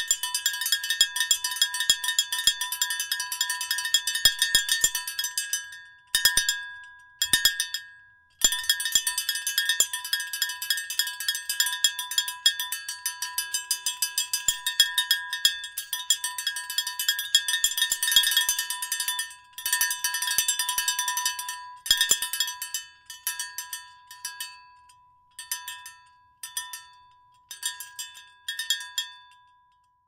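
A cowbell being rung, giving repeated metallic clanks with a ringing tone. The clanks come in fast runs of several a second, broken by short pauses. In the last third they come in shorter, sparser groups, and they stop just before the end.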